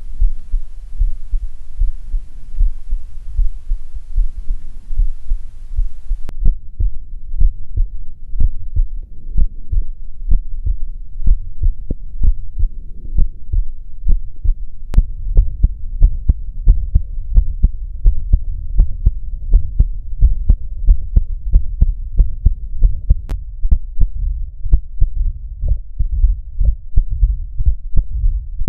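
Human heartbeats recorded through the Stethophone smartphone stethoscope app, a steady run of beats. A faint hiss sits under the beats and cuts off suddenly about six seconds in.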